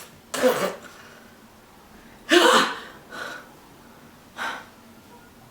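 A woman's short breathy vocal sounds, like gasps or huffs, four times; the second, about two seconds in, is the loudest and partly voiced.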